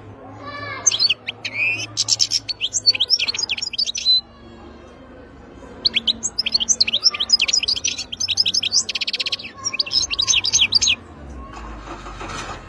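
European goldfinch singing: two long phrases of rapid, high twittering, the first ending about four seconds in and the second starting about two seconds later and carrying a buzzy rattle near its middle.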